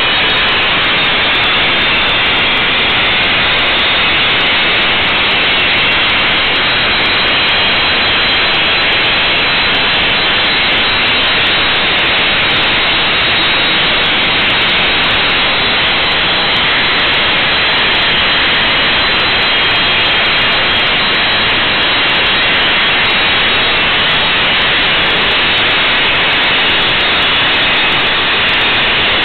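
Avro Vulcan XH558's four Rolls-Royce Olympus turbojets running steadily at ground idle: a loud, even rushing noise with a faint high whine.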